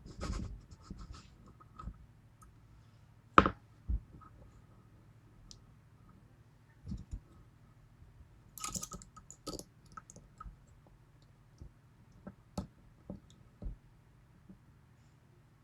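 Lock pick and tension wrench working the keyway of a six-pin Yale pin tumbler lock with spool drivers, making scattered small clicks and scratching. There is a sharper click about three and a half seconds in and a short burst of clicking and scraping near nine seconds.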